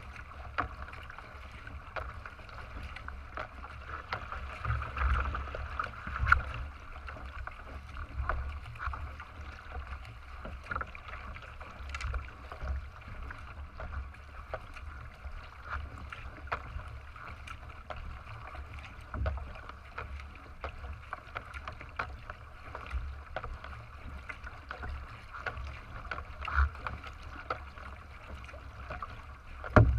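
A racing kayak moving fast through flat water: water washing along the hull, with frequent short splashes and a low rumble.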